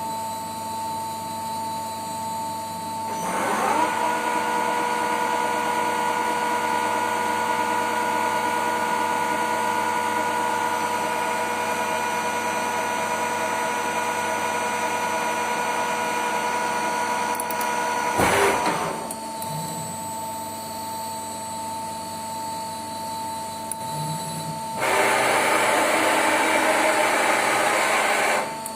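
Colchester 2000 CNC lathe running: a steady machine whine that rises as it speeds up about three seconds in. There is a sharp clunk about eighteen seconds in, after which it drops back. Near the end it runs louder and rougher for a few seconds, then cuts off.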